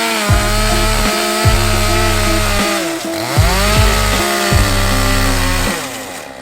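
A chainsaw running on timber, its pitch dropping and then rising again about halfway through, under background music.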